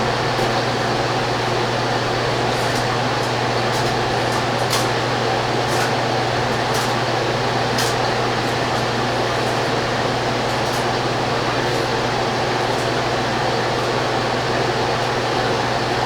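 Steady whirring of an electric fan or blower with a constant low hum, and a few faint light clicks in the first half.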